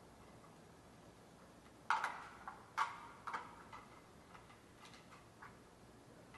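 Irregular plastic clicks and knocks from a dome security camera being handled and pressed onto its plastic mounting box, the loudest a pair about two seconds in and another just under a second later, with fainter clicks after.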